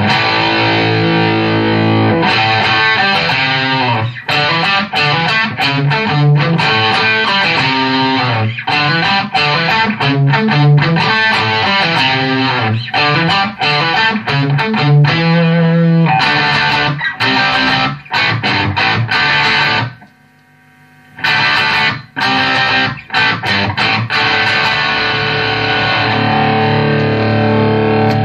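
Electric guitar, a Gibson Les Paul Special with Bare Knuckle P90 pickups, played through a Visual Sound Route 66 V3 overdrive/compressor pedal into a 1978 Fender Pro Reverb amp, with a driven tone. Riffs and chords ring continuously, stopping for about a second roughly two-thirds of the way through before playing resumes.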